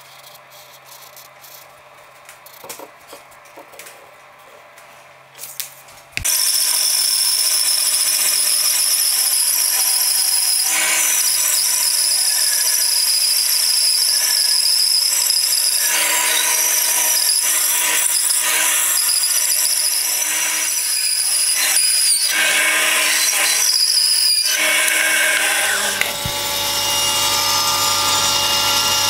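Quiet rustling of a paper template on the board, then, about six seconds in, a bandsaw starts suddenly and cuts along the traced outline of an ash axe-handle blank with a loud, steady noise. Near the end it gives way to a table saw running with a steady low hum.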